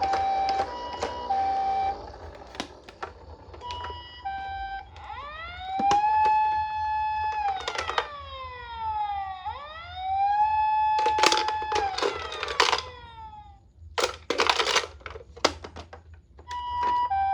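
Toy ambulance minicar's electronic siren: an alternating two-note hi-lo call, then a wail that rises, holds and falls, then rises again, with several short bursts of noise in the second half and the two-note call back near the end.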